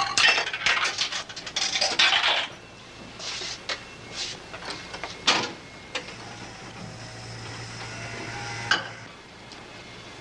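Jukebox being worked by hand: a quick run of clicks and clinks, then a few single sharp clicks. After that comes a few seconds of steady motor hum from the mechanism, ending in a click.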